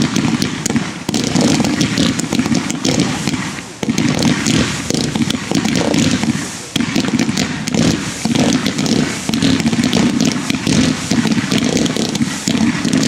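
Several Lesli consumer New Year's fireworks batteries (Category F2) firing together: a dense, continuous barrage of launch pops and crackling, with two brief dips about four and seven seconds in.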